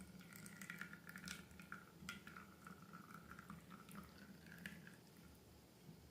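Slime being handled, giving faint wet clicks and sticky crackles for about five seconds before stopping.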